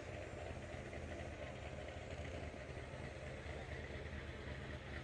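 Faint, steady low rumble of an engine idling, with no change in speed.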